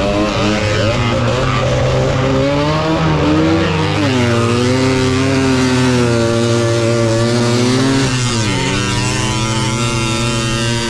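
Tuned Balkan 50 moped's small two-stroke engine being ridden hard, its pitch rising and falling with the throttle. It drops sharply about eight seconds in, then climbs again.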